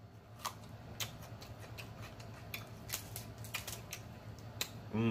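Close-miked eating sounds: scattered sharp clicks and crunches of chewing and lip smacking while biting a fresh jalapeño and working snow crab legs. A short hummed moan begins right at the end.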